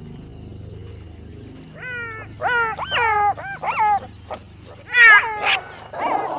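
Black-backed jackals squabbling with a hyena over meat: a quick string of short yelping calls, each rising and then sliding down in pitch, in two bunches about two and five seconds in.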